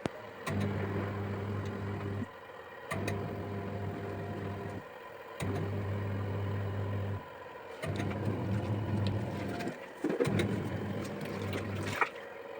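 Mini manual washing machine's wash motor humming as it turns the load, cutting out for about half a second every two and a half seconds as the wash cycle stops and reverses direction.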